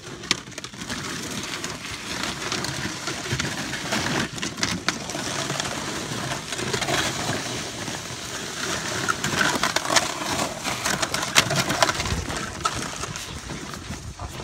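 Smitty sled's two skis dragging over snow-covered lake ice under about 200 pounds of gear, with boots crunching in the snow: a steady scraping crunch full of small crackles.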